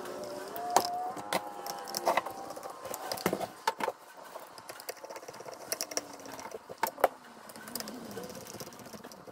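Small metal trimmer parts and hand tools clinking and knocking as they are handled on a workbench. There is a handful of sharp clicks, the loudest about a second in and again near seven seconds.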